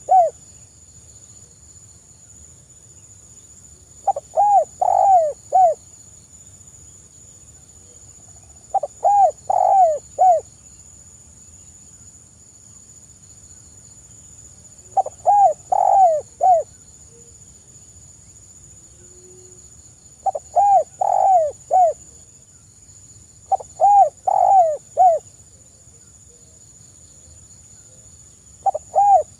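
Spotted dove cooing softly: phrases of several rolling coo notes, each phrase lasting about a second and a half, repeated every four to six seconds.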